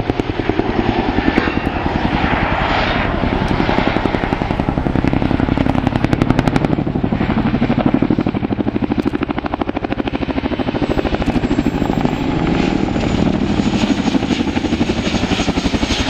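Boeing CH-47 Chinook tandem-rotor helicopter flying past at close range, its twin rotors beating out a fast, steady, heavy blade thump with a faint high turbine whine on top. It is the rhythmic beat likened to a Harley-Davidson motorbike.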